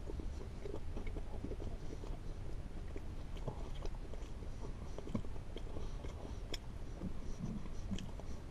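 A man biting and chewing a crispy breaded chicken sandwich close to the microphone: irregular wet chewing with small crackles, over a steady low hum.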